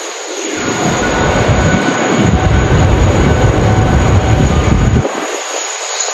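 Strong wind buffeting the microphone: a deep, gusty rumble that cuts out suddenly about five seconds in. Under it runs the steady hiss and faint whine of a jet airliner's engines.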